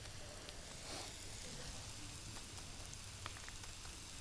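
Faint sizzling of food frying in a skillet, a steady hiss with small scattered crackles.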